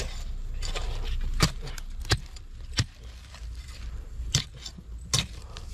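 Metal blade of a long-handled spade striking and chopping into dry, stony earth, about five sharp strikes roughly a second apart while digging out a burrow.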